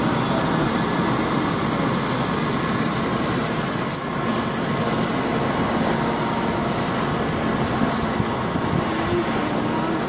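Case IH Axial Flow 5140 combine running steadily while harvesting: the diesel engine and threshing machinery make a continuous mechanical drone, with a few faint steady whining tones.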